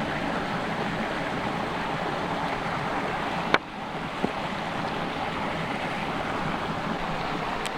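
Steady rush of a flowing mountain creek, with a sharp click about three and a half seconds in and a smaller one just after.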